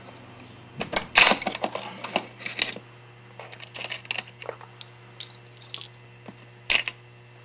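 Small metal parts of a motorcycle gearshift mechanism (shift pawl and detent pieces) clicking and clinking as they are pulled loose and taken out by hand. There is a quick cluster of sharp clinks about a second in, scattered lighter clicks after, and one loud clink near the end.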